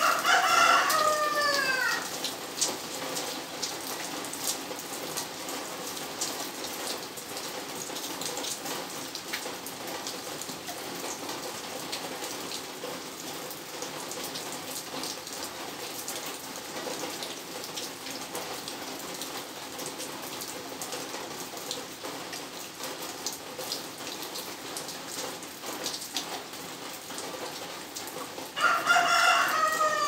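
Steady rain falling on paving and leaves, with a rooster crowing twice, once at the start and again near the end, each crow about two seconds long and dropping in pitch at its close.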